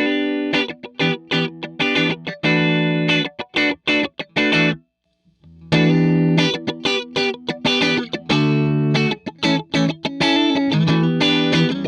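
Electric guitar (Fender Telecaster) played through the All Pedal Galacta Vise compressor pedal into a Vox AC30 amp, demonstrating the compressed tone: a run of plucked chords and single notes, a short pause about five seconds in, then more playing.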